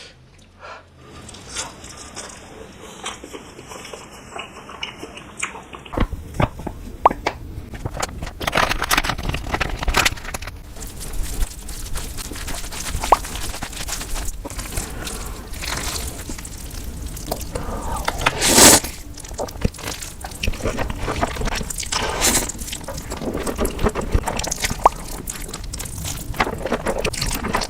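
Close-miked eating sounds: wet chewing and crunching with many small sharp clicks. The sound becomes louder and denser about six seconds in.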